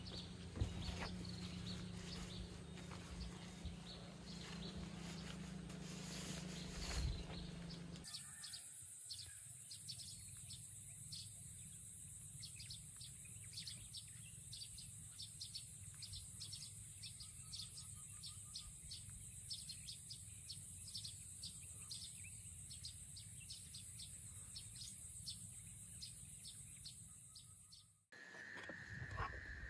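Rustling of camping gear being handled, over a low hum. From about eight seconds in, a steady high-pitched insect drone with scattered bird chirps takes over. It fades out near the end.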